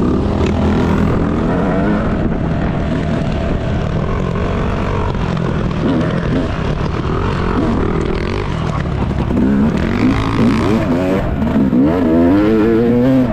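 Motocross dirt bike engine revving up and down as it is ridden on the track, its pitch rising and falling again and again, with quick rises and drops in the last few seconds.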